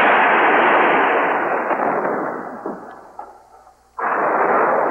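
Two loud explosion-like blasts from the film's soundtrack. The first dies away over about three seconds, and a second starts suddenly about four seconds in.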